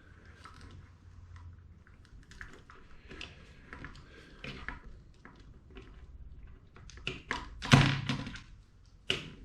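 Small plastic LEGO Technic parts clicking and rattling as bushings are handled and pushed onto axles, with a louder knock about three-quarters of the way through and another shortly before the end.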